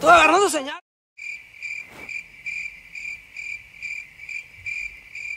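Cricket chirping steadily at a high pitch, about two chirps a second. It is preceded by a brief, loud, wavering high whine right at the start, which cuts off abruptly.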